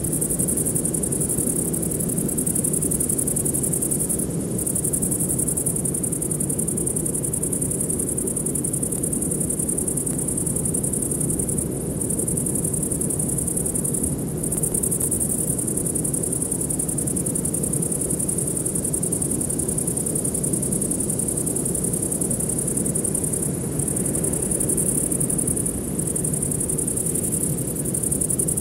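Steady high-pitched insect chorus with a few brief gaps, over a low steady rushing hiss.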